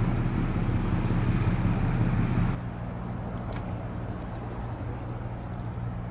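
A steady low mechanical hum, with wind noise on the microphone for the first two and a half seconds, after which the sound drops suddenly quieter. A single sharp click comes about three and a half seconds in.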